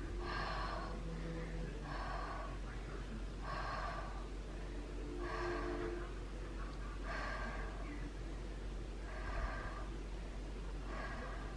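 Heavy, rhythmic mouth breathing of a woman in the pushing stage of labor, one deep breath about every one and a half to two seconds.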